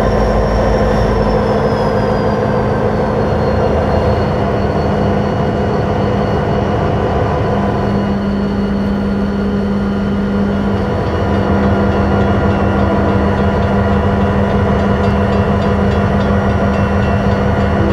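EMD diesel locomotives, a GP39M and a GP38-2, running steadily, with a high whine that falls in pitch a second or two in.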